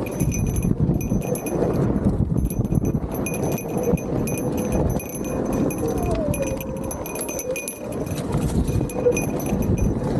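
Motorcycle engine running at low revs that rise and fall, with a rough, uneven rumble while riding off-road.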